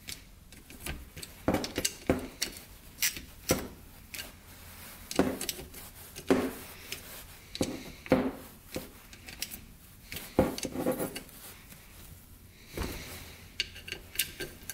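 Sharp metal clicks and knocks of a wrench on the clutch cover bolts of a 2005 Yamaha YFZ450 engine as they are tightened. The clicks come irregularly, about one every half second, with a denser run of them about ten seconds in.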